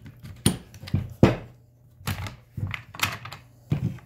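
Hard plastic clicks and knocks of a Glock 26 pistol being forced into the polymer chassis of an MCK Gen 2 conversion kit: a tight fit, because the kit's door has not been opened. About half a dozen separate sharp knocks, the loudest a little over a second in.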